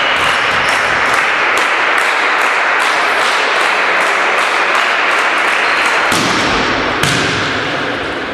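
Volleyball match in a sports hall: a steady wash of hall noise with a quick run of sharp taps and thuds, and a heavier thump about seven seconds in as the ball comes into play.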